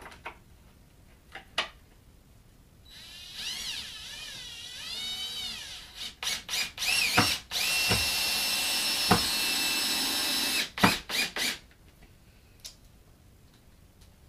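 Cordless drill driving a long screw through the door jamb into the wall framing. The motor whine wavers up and down at first, then comes a few short bursts and a steady run of about three seconds, ending in several quick stop-start blips as the screw seats. A few light clicks come before it.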